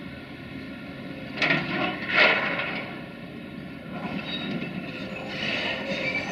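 CASE CX330 excavator's diesel engine running steadily, with two loud knocks about one and a half and two seconds in, then a rattling, scraping noise with faint high squeaks building from about four seconds in as the arm swings.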